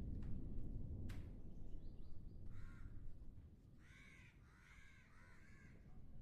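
Low rumble of distant thunder that fades away, then a crow cawing: one caw, then a run of about four more.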